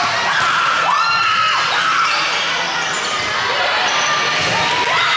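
Sounds of an indoor volleyball match: sneakers squeaking on the court in short rising-and-falling squeals and balls being hit and bouncing, over steady crowd noise.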